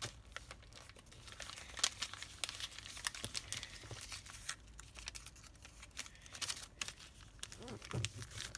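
A sheet of origami paper being folded and creased by hand, with scattered crinkles and crisp rustles as it is pressed flat.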